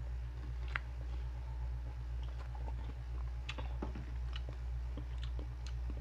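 People chewing crispy chicharon (fried pork rinds), with scattered short crunching clicks, over a steady low hum.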